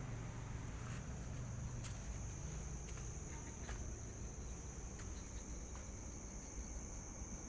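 Night insects, crickets, trilling in one steady high-pitched chorus over a low rumble, with a few faint clicks.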